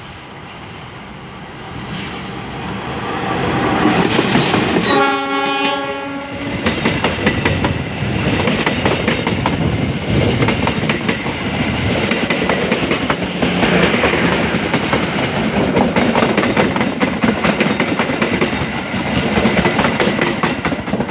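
A CC 206 diesel-electric locomotive hauling a train approaches, getting louder, and sounds its horn once, about a second and a half long, roughly five seconds in. The train then passes close with loud, continuous wheel clatter over the rail joints.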